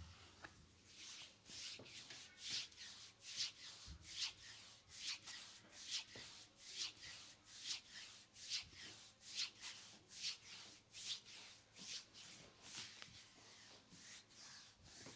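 Hands massaging a bare lower leg: palms rubbing up and down the skin of the calf and shin, a soft swishing stroke about twice a second.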